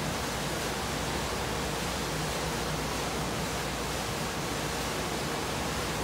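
Steady, even hiss of background noise with no distinct clicks, knocks or voices.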